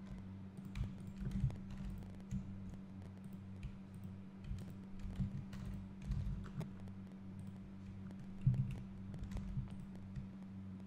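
Computer keyboard keys and mouse buttons clicking at an irregular pace as shortcuts and selections are made, over a steady low hum.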